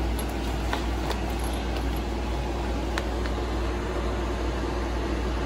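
Steady low rumble at an even level, with a few faint light clicks.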